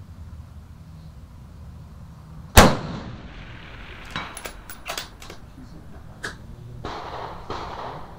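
A single shot from a Bergara HMR Pro bolt-action rifle in 6.5 Creedmoor about two and a half seconds in, the loudest sound by far, with a short ringing tail. A second or so later comes a quick run of sharp metallic clicks as the bolt is worked to eject the case and chamber the next round.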